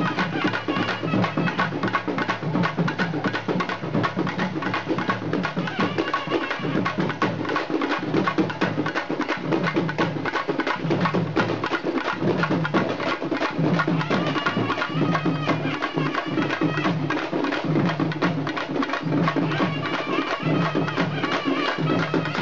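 Tamil folk music for a stage dance: fast, dense drumming with a melody line over it.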